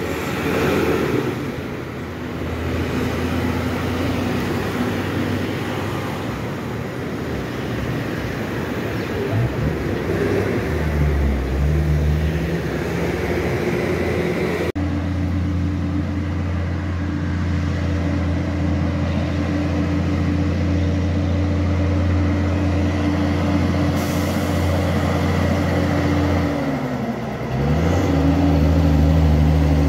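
Heavy diesel truck engine pulling uphill under load with a steady low drone. Near the end its pitch drops and climbs back as it changes gear, and it grows louder as the truck comes closer.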